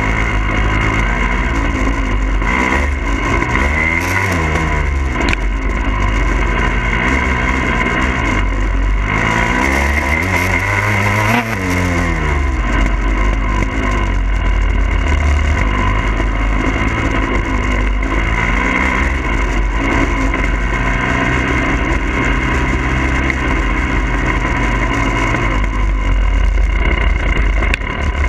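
2022 Husqvarna TE300i's 300 cc two-stroke engine running as the bike is ridden, its pitch rising and falling with the throttle, with two marked swings about four and eleven seconds in.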